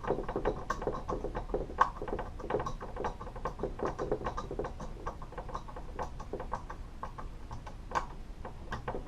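Phillips screwdriver turning long screws through a case fan into a liquid-cooler radiator: a quick, irregular run of small clicks and scratches as the screws are snugged down.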